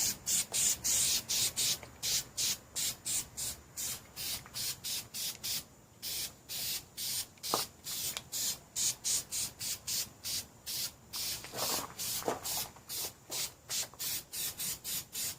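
Aerosol can of truck bed coating spraying in quick short bursts, a hiss repeating about three times a second.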